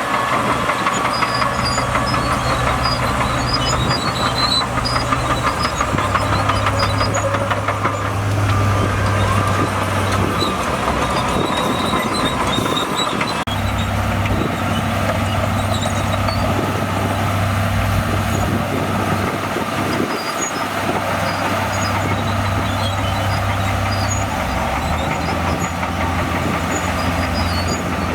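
Shantui DH17C2 crawler bulldozer working: its diesel engine runs steadily under load over the clatter of its steel tracks, and the engine note shifts up and down several times.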